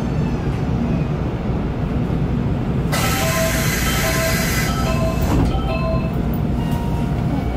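Nankai 8300 series electric train coming to a stop at a station. A steady low rumble runs throughout, a loud burst of compressed-air hiss starts about three seconds in and lasts under two seconds, and a short beeping tone repeats about twice a second.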